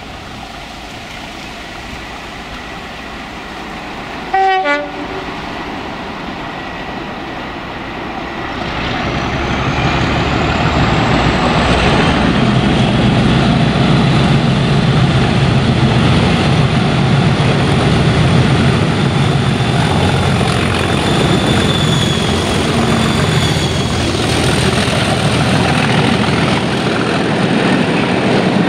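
Class 37 diesel locomotives with English Electric V12 engines, hauling a passenger train: a short blast on the horn about four and a half seconds in, then the locomotives growing louder as they approach and pass, followed by the coaches running by close up.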